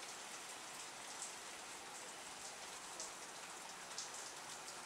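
Steady rain from a thunderstorm falling, with now and then a single drop ticking sharply close by.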